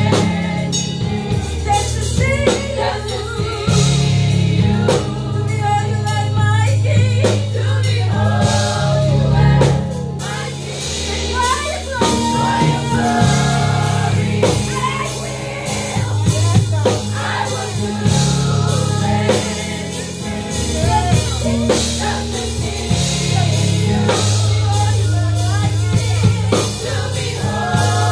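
Live gospel praise team of several women singing together into microphones, backed by a drum kit and sustained low bass notes that change every couple of seconds.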